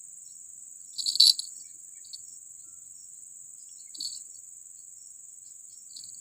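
Steady high-pitched chirring of a cricket chorus, with a short, louder noisy rattle about a second in and fainter brief sounds around two, four and six seconds.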